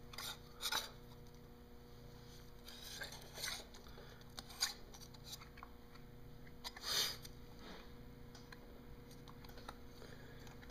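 Faint handling sounds of a Mercruiser sea water pump housing being turned by hand onto its shaft to seat the impeller: a few short scuffs and rubs, one sharp click a little after halfway, and the strongest scrape near the end, over a steady low hum.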